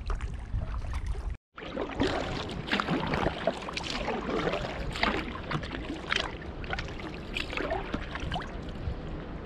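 Kayak paddle strokes splashing at an uneven rhythm, with water sloshing against the hull, heard close up through a hull-mounted GoPro over a steady low rumble. The sound drops out briefly about a second and a half in.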